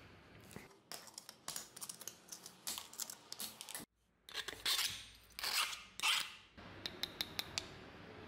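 A hand file rasping across a thin, old sheet-metal scabbard fitting in about three short, loud strokes in the middle. Before them come many small clicks and scrapes as the fitting is worked by hand on the anvil, and a few more clicks follow the strokes.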